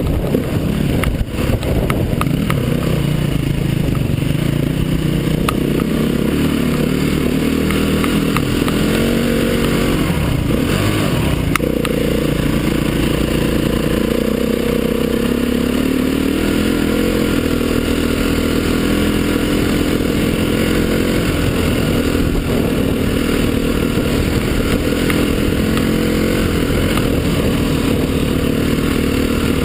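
Dirt bike engine running close-up while riding a rough track, its note rising and falling with the throttle and gear changes. A few sharp knocks and rattles come about a second or two in and again around ten to twelve seconds in.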